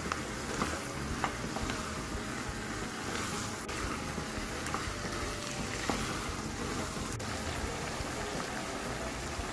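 Vegetables, minced meat and black soybean paste sizzling in a frying pan as they are stir-fried, with a few clicks of the wooden spatula and chopsticks against the pan.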